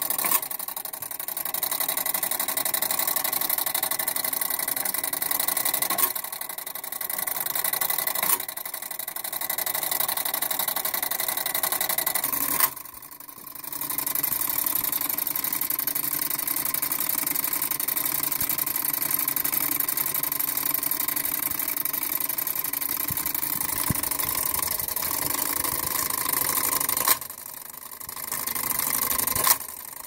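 Spring-wound clockwork of a Peerless fire alarm call box and a Bliss Gamewell punch register running while the box sends its code 424, a steady mechanical whir of gears. It breaks off briefly several times, longest about 13 seconds in and again about 27 seconds in.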